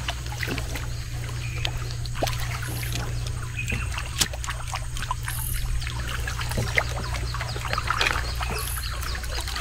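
Light water splashing and trickling as a fishing lure is pulled across the surface of still river water on a long bamboo pole, with many small scattered clicks. A steady low hum runs underneath.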